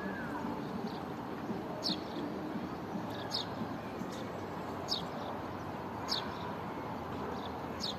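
A small bird repeats a short, high, falling chirp five times, about every one and a half seconds, over a steady rushing background noise.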